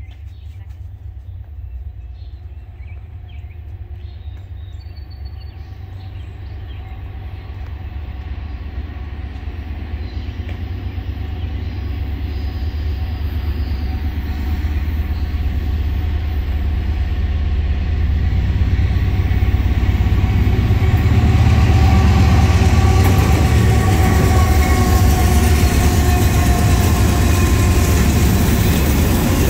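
Norfolk Southern freight train's diesel locomotives approaching, a low engine rumble with a steady whine above it, growing steadily louder and loudest over the last third as they reach the platform.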